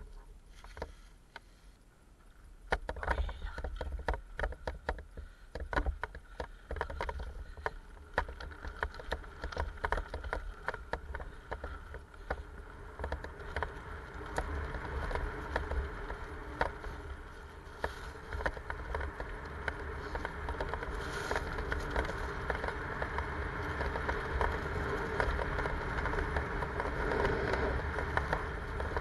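Mountain bike ridden fast down a dirt trail. Knobby tyres roll over dirt and leaves, and the chain and frame rattle with frequent irregular clicks and knocks. A steady low wind rumble on the microphone starts about three seconds in, as the bike gets going, and grows a little louder toward the end.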